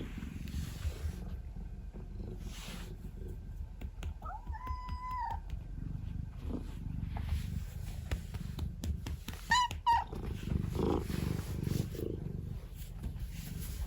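Domestic cat purring steadily, with a short meow about four and a half seconds in and a quick two-part chirp near ten seconds.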